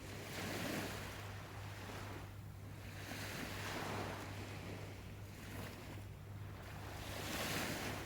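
Sea waves washing ashore in repeated swells of surf, three of them rising and falling, with a steady low hum underneath.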